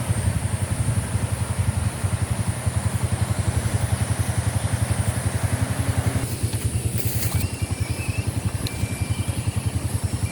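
Vehicle engine running steadily with a rapid, even low throb. About six seconds in, the hiss above it drops away.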